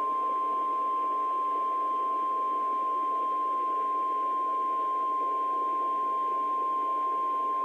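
NOAA Weather Radio 1050 Hz warning alarm tone: one steady, high-pitched pure tone over a background hiss, cutting off suddenly at the end. It is the alert that comes before the reading of a new tornado warning.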